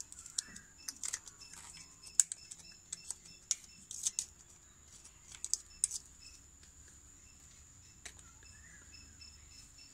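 Light clicks and taps scattered through the first six seconds, the loudest about two seconds in, then quieter. A steady, high-pitched cricket chirring runs underneath.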